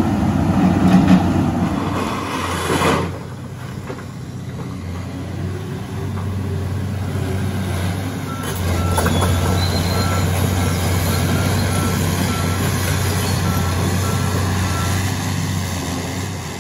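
Tracked excavator's diesel engine running steadily, with a crash of demolition debris about three seconds in. From about eight seconds in its travel alarm beeps repeatedly, a little under twice a second, as the machine moves.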